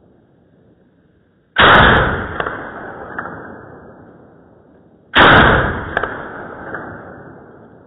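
Two shots from an SKS semi-automatic rifle, about three and a half seconds apart, heard in slow motion: each is a sudden loud report stretched into a long boom that fades over about two seconds, with a couple of fainter clicks trailing after it.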